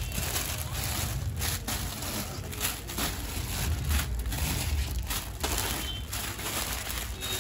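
Clear plastic packaging around folded chiffon suit sets crinkling and crackling as the packets are handled and lifted away, over a low steady rumble.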